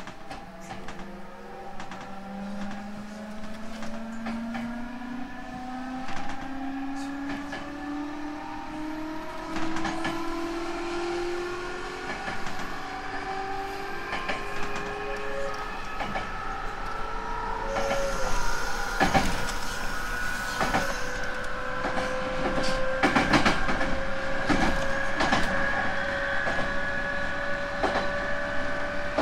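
311 series electric multiple unit heard from inside the car, its traction motors and VVVF inverter whining in several tones that climb steadily in pitch as the train accelerates. Rail-joint clacks sound under the car, coming more often in the second half.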